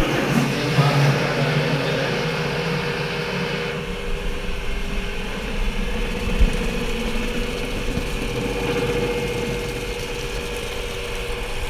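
Servo-driven liquid filling machine running a 5-litre fill, its motor humming steadily while liquid pours from the nozzle into a plastic jar. The high hiss eases about four seconds in.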